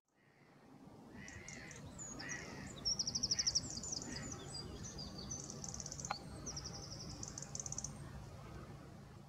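European goldfinch singing: quick twittering chirps and fast trills of rapidly repeated high notes, with a single sharp click about six seconds in, over a low background rumble.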